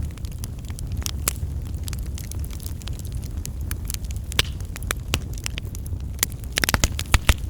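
Fireplace fire crackling: irregular sharp snaps and pops over a steady low rumble of the flames, with a quick flurry of louder pops near the end.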